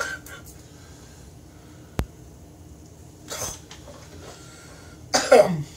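Quiet room with a single sharp click about two seconds in and a short breathy sound a little later. Near the end a man gives a short, loud vocal exclamation that falls in pitch.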